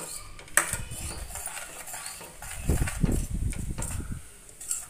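Spatula stirring and scraping a thick onion-tomato masala paste frying in oil in a steel kadhai, knocking against the pan, with a sharp clack about half a second in and heavier knocks around three seconds.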